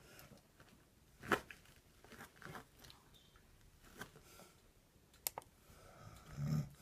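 Handling noise as a tablet is held and tapped: scattered soft knocks and clicks, with a sharp knock about a second in and two quick clicks near the end, then a brief low hum just before the end.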